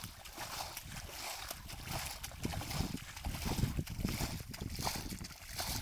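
Water splashing and sloshing in irregular bursts, heaviest about halfway through.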